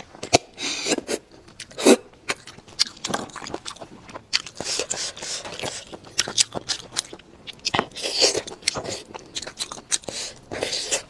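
Close-up eating sounds of marrow being sucked out of braised lamb bones, with several hissing slurps and many wet mouth clicks and chewing sounds.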